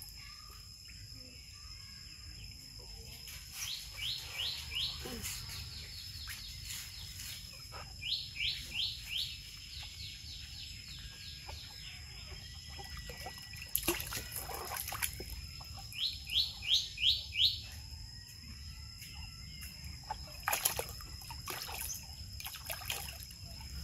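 A bird singing three short runs of about five quick, sweeping notes each, about four, eight and sixteen seconds in.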